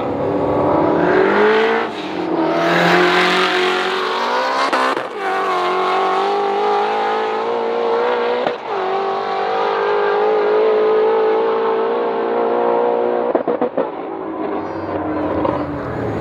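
Two modified Ford Shelby GT350R 5.2-litre V8s, one Whipple-supercharged and one twin-turbocharged, launching together and accelerating hard through the gears. Engine pitch climbs and drops at each upshift, about two, five and eight and a half seconds in, then holds steady until the sound thins out near the end.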